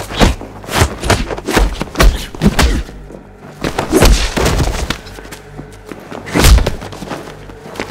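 Movie fight sound effects: a rapid run of about a dozen punch and kick impacts, heavy thuds and thwacks, over a music score. The heaviest hits land about two seconds and six and a half seconds in.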